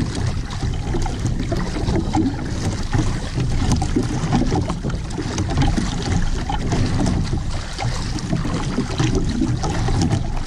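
Wind buffeting the microphone over choppy sea, with waves splashing and sloshing against the hull of a small outrigger boat.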